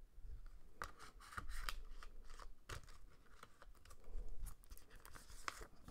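Faint handling sounds from a plastic Blu-ray case and its paper card and cover sleeve being turned over and opened: scattered small clicks and rustles.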